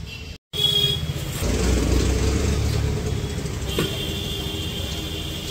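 Motor vehicle running with road noise, after a brief dropout near the start. A thin steady high tone joins a little before four seconds in.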